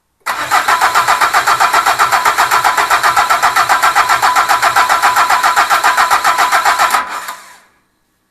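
Starter motor cranking a Peugeot HDi diesel engine on its first start attempt: an even, rapid chug of about seven compression pulses a second, which cuts off suddenly about seven seconds in and fades out briefly.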